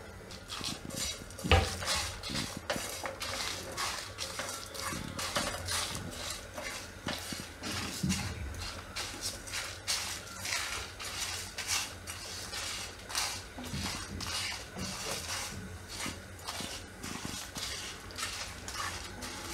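Silicone spatula stirring whole spices being dry-roasted in a pan with no oil: the dry seeds, chillies and bay leaves scratch and rattle against the pan bottom. There are frequent irregular light clicks and taps, with one louder knock about a second and a half in.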